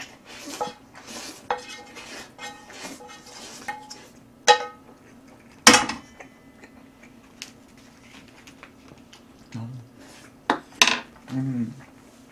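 Metal utensils clinking and scraping against a dark metal pan and dishes. The clatter is busiest in the first half, with a sharp clank about six seconds in, then a few scattered knocks.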